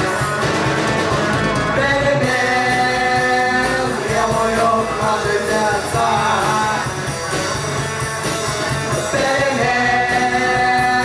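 Rock music: an instrumental passage of a Russian-language rock song, with guitars and drums playing a steady beat between sung lines.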